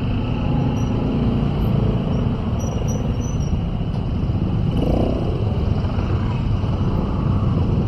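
Steady low rumble of motorcycle and car engines crawling in congested traffic.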